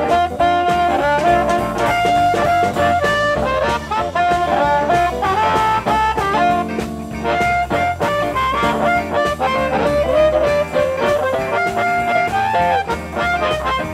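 Amplified blues harmonica solo, played cupped against a handheld microphone, with long held and bent notes over a band backing of hollow-body electric guitar and drums.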